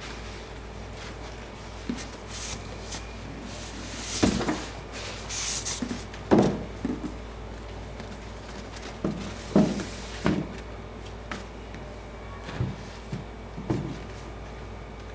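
Cardboard sneaker box being handled: scattered knocks, bumps and short scrapes as the box and its lid are lifted, turned and set down. The loudest knocks come about six seconds in and again around ten seconds, over a steady low hum.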